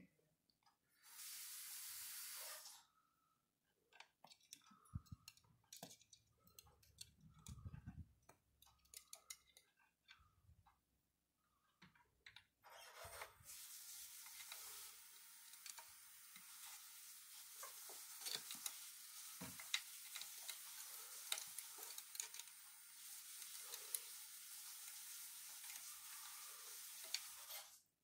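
Near silence with a faint steady hiss and scattered soft clicks and taps: the parrot's claws and beak gripping the chair spindles as it climbs.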